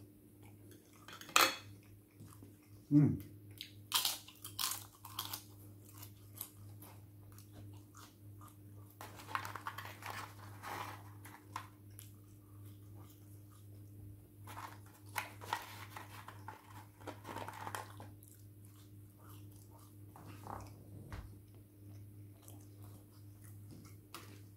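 Close-up eating: cutlery clinking on dishes with several sharp clinks in the first few seconds, then chewing of rice and vegetable curry. A low steady hum runs underneath.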